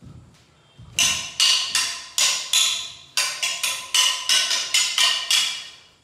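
Weapons clashing in Kalaripayattu sparring: a rapid, irregular run of about fourteen sharp ringing strikes, starting about a second in and stopping just before the end.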